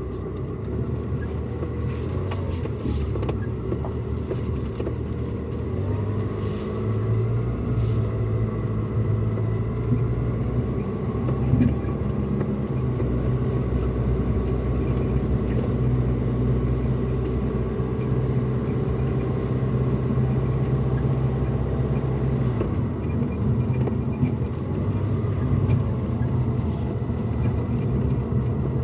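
Pickup truck cabin noise while driving: a steady low rumble of engine and road. The engine hum rises a little about six seconds in, holds, and drops back near the end.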